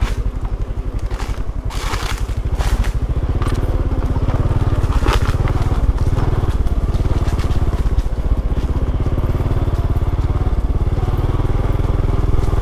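Small motorcycle engine running at low speed, a steady rapid pulsing, with scattered crackling and crunching over it.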